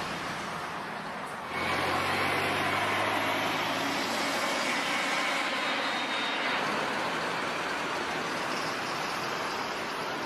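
Aircraft engine noise: a steady rushing sound with a low hum underneath. It jumps louder suddenly about a second and a half in.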